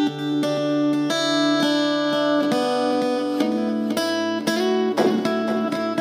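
Acoustic guitar played through a delay pedal: picked notes and chords ring on and overlap as their repeats sound, with a change of chord about a second in, another past the halfway point, and a harder strum about five seconds in.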